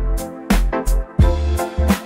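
Instrumental 80s-style pop music: a steady drum-kit beat with bass and held chords, with no singing.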